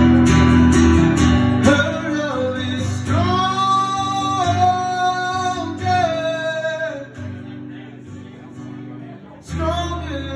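Live solo acoustic-electric guitar and voice: strummed chords, then a long sung note held from about three seconds in that slowly fades, with the strumming coming back in strongly near the end.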